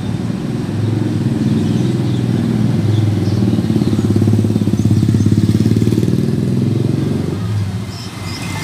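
Motorcycle engine running as it rides past close by, growing louder to a peak around the middle, then fading away near the end.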